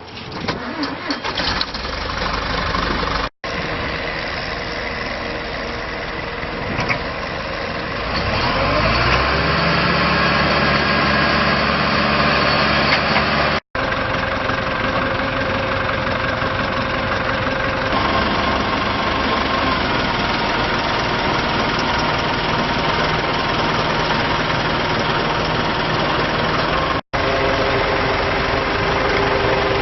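Deere diesel engine of a Blaw-Knox PF-410 asphalt paver running; about eight seconds in its speed rises and it holds at a higher, louder pitch. Three very brief dropouts in the sound.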